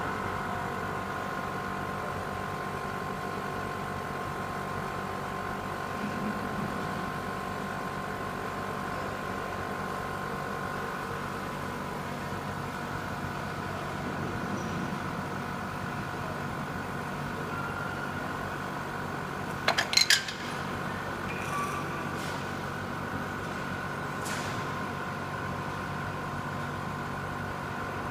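Air pump of a pneumatic telescopic mast running steadily with a constant whining hum as the mast extends. About twenty seconds in, a quick cluster of sharp metallic clicks.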